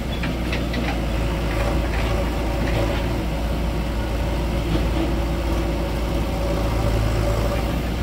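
Diesel farm tractor engines running steadily, one close by and one pulling a trolley away, with a constant low engine hum.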